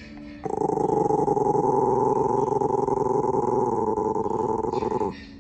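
A small dog growling in one long, continuous growl that starts about half a second in and stops near the end.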